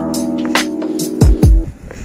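Background music with a steady beat: held synth or keyboard chords over drum hits and kick-drum thumps, with a brief dip in the music near the end.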